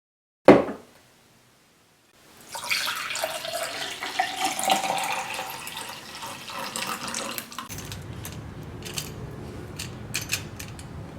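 A single sharp click, then after a short silence a steady rushing noise of running water, with a few scattered clicks near the end.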